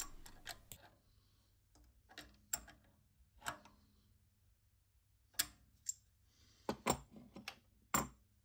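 An open-ended spanner clicking and tapping against the lock nut and threaded metal barrel of a tachometer sensor as the nut is tightened on a steel bracket: about a dozen short metallic clicks at irregular intervals, with quiet gaps between them.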